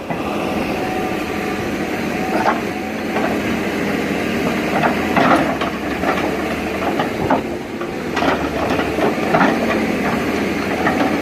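Crawler excavator's diesel engine running steadily while the bucket digs into dry soil, with scattered knocks and scrapes of the bucket teeth and falling earth.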